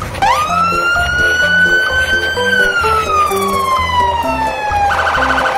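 Siren sound effect: a wail that sweeps up quickly, holds, then glides slowly down, breaking into a rapid warble near the end before sweeping up again. Background music with bass and melody notes plays underneath.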